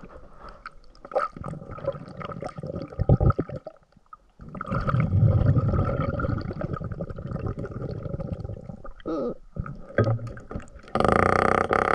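Water sloshing and gurgling heard underwater, with a few sharp knocks about three seconds in. About a second before the end, a loud steady hum starts suddenly.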